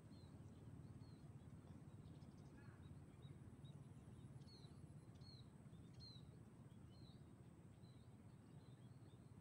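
Faint ambience of small birds chirping over and over in short high calls, over a steady low rumble.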